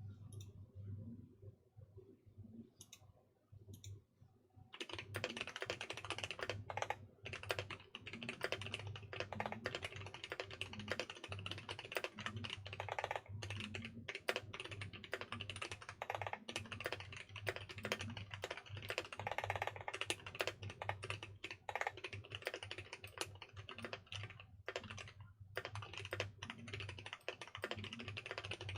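Mechanical keyboard fitted with Kailh NovelKeys Box Cream linear switches being typed on. A few separate keystrokes come first, then fast continuous typing from about five seconds in, with a brief pause near the end, over a steady low hum.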